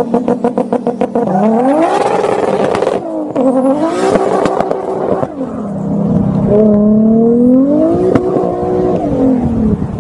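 Toyota Supra (fourth generation) engine: about a second of rapid crackling pops from the exhaust, then a hard launch with the engine pitch climbing and dropping back several times as it accelerates through the gears, falling away near the end.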